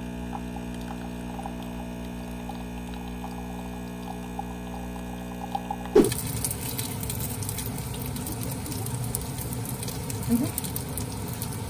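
An illy capsule coffee machine's pump humming steadily as coffee streams into a mug. About six seconds in, this gives way sharply to dumplings sizzling and crackling in oil in a frying pan.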